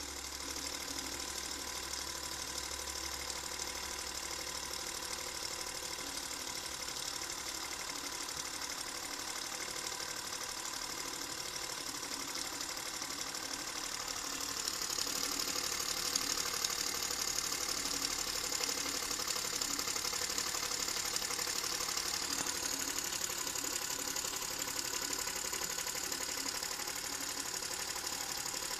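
Model three-cylinder oscillating steam engine running on steam from a small copper boiler: a steady rapid mechanical clatter with a continuous steam hiss. The hiss grows louder about halfway through.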